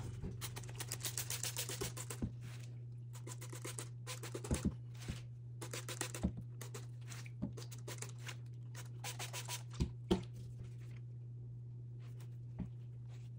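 Hand-held trigger spray bottle spritzing isopropyl alcohol onto a potted succulent in several quick runs of squirts, the longest in the first two seconds. A few thumps come from the plastic pot being handled, over a steady low hum.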